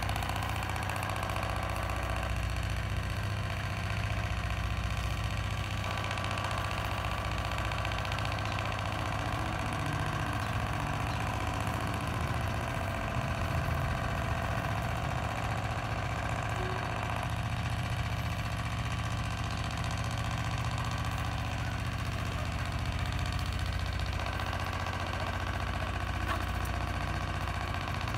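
A motor running steadily, a constant low hum with no change in speed.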